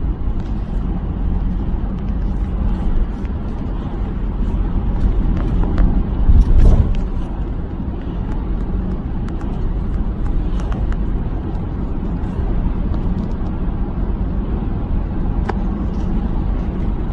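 Car road noise heard from inside the cabin: a steady low rumble of engine and tyres, with a louder low surge about six to seven seconds in.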